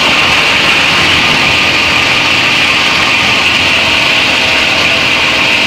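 Heavy-duty plastic scrap grinder running steadily, its rotor chopping plastic into granules with a loud, even noise.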